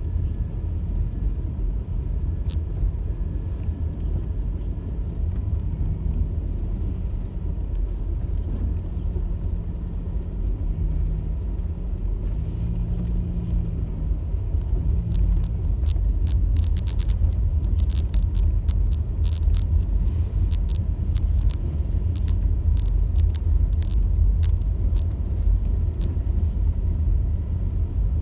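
A car driving: a steady low rumble of engine and road noise. From a little past the middle there is a scatter of short, sharp clicks.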